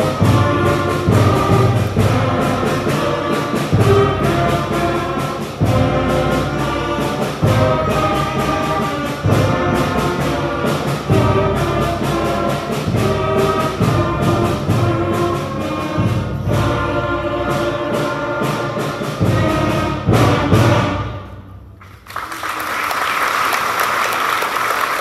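Elementary school concert band of flutes, clarinets, trombones and bass drum playing a piece with a steady beat. The music ends about three-quarters of the way through, and the audience breaks into applause.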